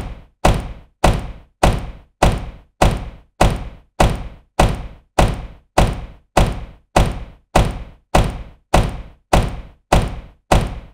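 Car door shutting with a solid thunk, the same short slam repeated over and over at an even pace of a little under two a second, each one dying away quickly.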